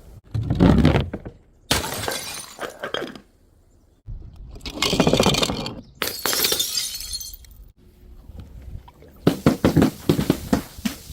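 Glass bottles smashing and shattering, about five separate breaks one after another, each a sudden crash followed by the clatter of broken glass.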